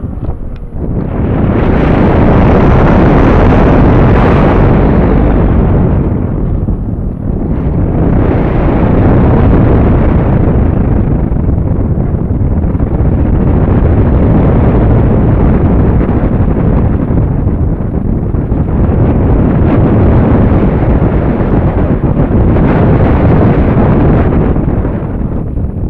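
Onboard audio from a Multiplex AcroMaster RC plane in flight: loud, rough wind buffeting over the camera's microphone mixed with the plane's electric motor and propeller. The noise eases briefly about seven seconds in and again near the end.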